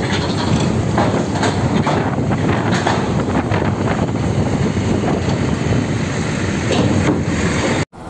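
Loaded flatbed trailer rolling over a ferry's steel loading ramp, its wheels setting off a steady clatter of knocks and rattles from the ramp plates. The noise cuts off abruptly near the end.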